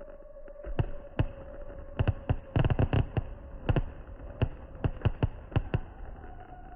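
Fireworks going off: a string of sharp, irregularly spaced bangs, with a quick rapid-fire cluster a little before the middle.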